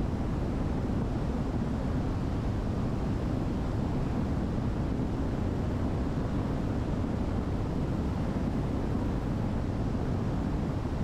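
Steady, unchanging cabin drone of a Diamond DA62's twin turbo-diesel engines in flight.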